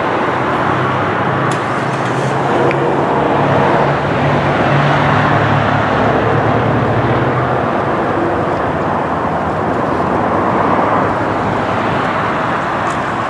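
Metrolink commuter train running by, a steady rumble and hiss with a low diesel engine drone that drops away about seven and a half seconds in.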